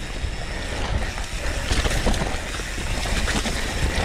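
Mountain bike descending a dirt trail: a steady rumble of wind on the microphone and tyres on the ground, with scattered clicks and rattles from the bike over rough terrain.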